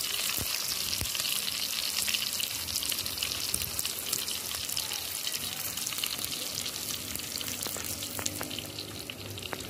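Pork cecina frying in hot oil in a metal pan over an open wood fire: a steady sizzle full of fine crackling spatters.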